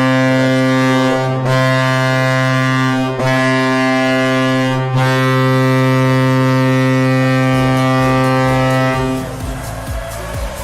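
Hockey goal horn blaring, one long low blast broken by three brief dips, stopping about nine seconds in, when music with a beat takes over: the signal that a goal has been scored.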